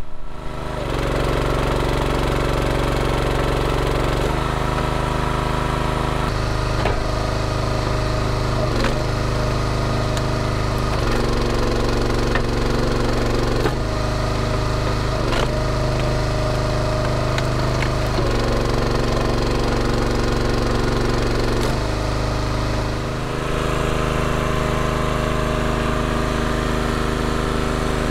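Harbor Freight Predator 212cc single-cylinder four-stroke engine running a homemade hydraulic log splitter, its note dropping and recovering every few seconds as the pump takes and sheds load while the cylinder drives through the wood. A few sharp cracks come through in the middle stretch.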